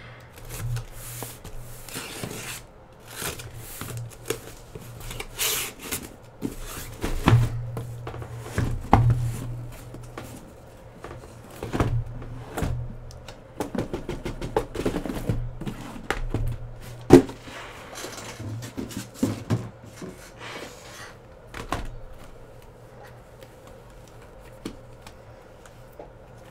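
A fresh sealed case of trading-card hobby boxes being handled and opened: cardboard rustling and scraping with many knocks and taps, the sharpest about 17 seconds in, over a low steady hum.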